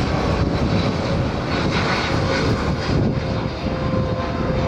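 Boeing 787 jet airliner climbing out just after takeoff, its engines at high thrust. The engine noise is a loud, steady rush with a faint held hum and a high whine running through it.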